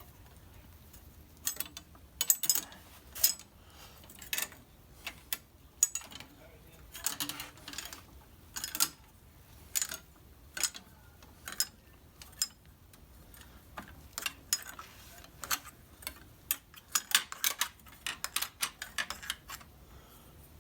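Irregular sharp metallic clicks and clinks of a steel Model T transmission band being bent by hand and fitted against an old transmission drum to shape it into a circle. The clicks come thicker near the end.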